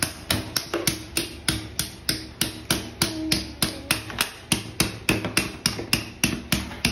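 A small hammer chipping at a ball of ice, with quick, evenly spaced sharp taps about four a second.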